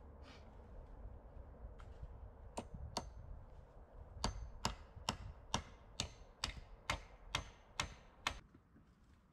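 Repeated sharp blows of a tool on wood: two, then a steady run of about ten at a little over two a second, which stops near the end.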